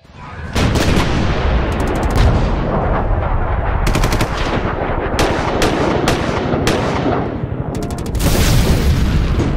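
Rapid automatic gunfire sound effect, machine-gun style: it starts suddenly about half a second in and goes on as a dense run of sharp cracks, growing a little louder near the end.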